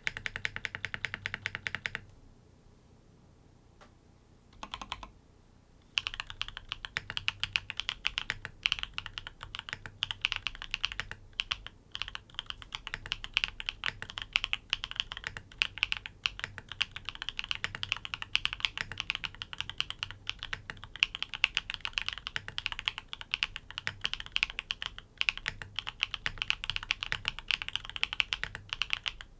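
Typing on a Neo80 mechanical keyboard with tactile switches in a gasket-jacket mount: a quick run of keystrokes, a pause with one short burst of keys, then steady fast typing from about six seconds in.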